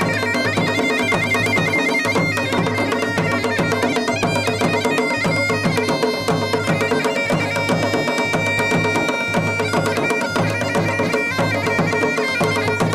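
Pahari wedding band music: dhol and damau drums beating a quick steady rhythm under a reed pipe melody that plays over a continuous drone.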